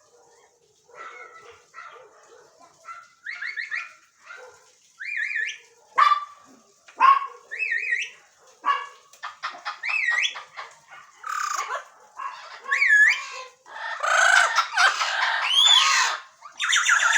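Several parrots calling over one another: short whistled calls with rising and falling pitch, and squawks. The calls come faster and louder until they become nearly continuous squawking over the last few seconds.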